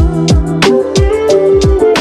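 Background music with a beat: deep kick drums that drop quickly in pitch, sharp percussion hits and sustained pitched notes.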